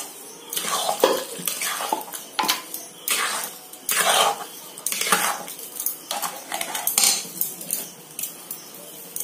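Flat metal spatula scraping and clattering against a metal pan as it stirs a wet semolina halwa mixture, in irregular strokes about once or twice a second that stop near the end.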